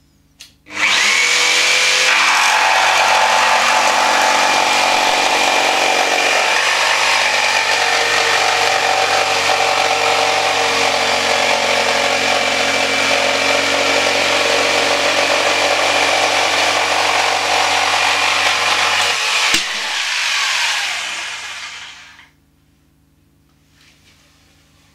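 Mafell P1CC jigsaw switching on about a second in and sawing a long straight cut through thick plywood, running steadily at an even pitch. Near the end there is a click, and the motor winds down to a stop.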